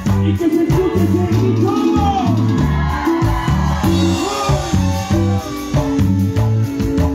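Live cumbia band music: a stepping bass line and a melody over a steady beat. About four seconds in comes a short rushing hiss as a stage smoke jet fires.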